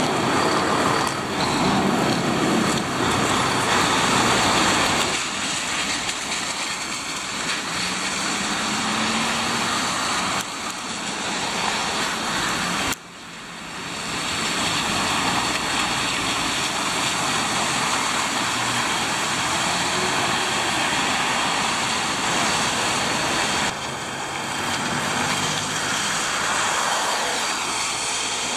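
City road traffic on wet asphalt: lorries and cars driving past, with engine noise under a steady hiss of tyres on the wet road. The sound breaks off abruptly about halfway through and picks up again at once.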